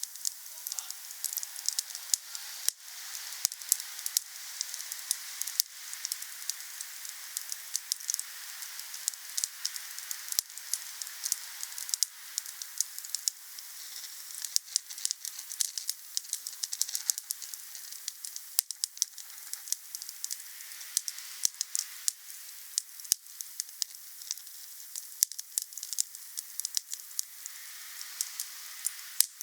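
Wood fire burning, crackling with frequent sharp pops over a steady hiss.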